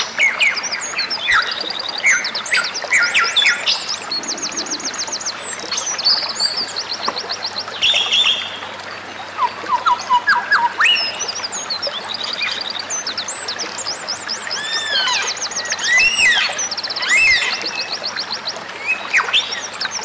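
Several songbirds calling and singing over one another: fast trills of evenly repeated high notes, short sliding chirps and arched whistled notes, densest near the end, over a steady hiss.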